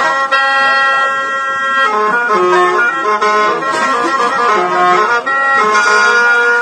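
Khaen, the Lao bamboo free-reed mouth organ, playing several held notes at once while the melody moves between them.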